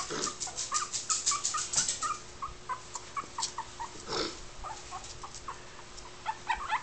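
Three-week-old puppies whimpering in short, high-pitched squeaks, coming quickly at first and more sparsely later, with light ticking in the first two seconds.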